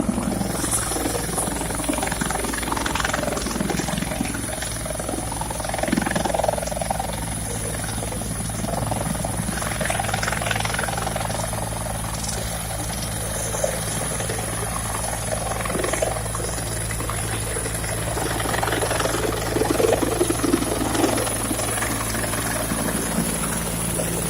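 Helicopter running steadily: a low rotor and engine drone with a thin high whine above it.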